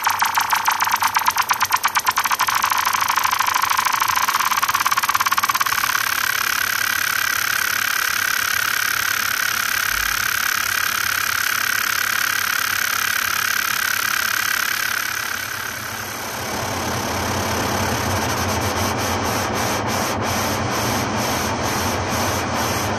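Experimental ambient electronic music: a dense hissing, rattling noise texture with a whistle-like tone that rises in pitch about five seconds in. After about sixteen seconds the texture fills out lower down, and near the end it pulses at about two beats a second.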